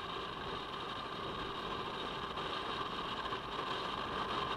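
Kawasaki Versys-X 250 parallel-twin motorcycle at a steady highway cruise: even engine and wind noise, picked up at the rider's helmet.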